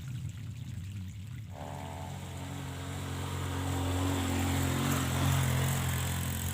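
A small engine running steadily with a low hum, coming in about a second and a half in, over trickling water.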